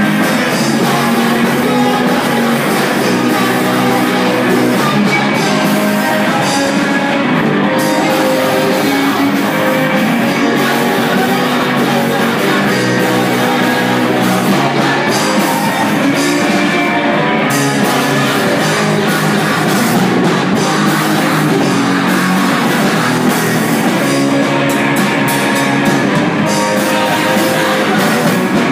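Rock music with electric guitar, a drum kit and singing, playing loudly without a break.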